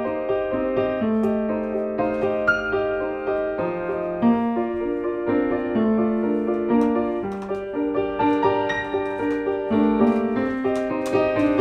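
Background piano music: a run of held notes and chords, changing every second or so.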